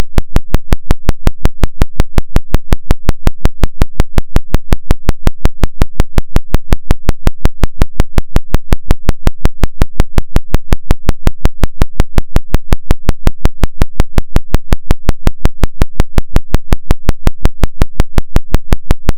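Isochronic tone for 5.5 Hz brainwave entrainment: a low tone switched on and off in even, sharp-edged pulses about five and a half times a second, steady and unchanging.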